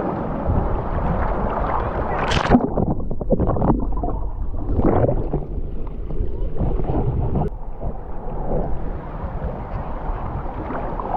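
Muffled sloshing and gurgling of sea water heard with the microphone held under the surface, with a sharper splash about two seconds in.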